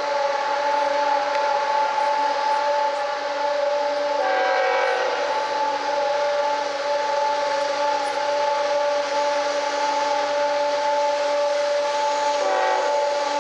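Diesel freight locomotives of a coal train with a loud, steady whistle-like tone held throughout, its pitch briefly changing twice, about four seconds in and near the end.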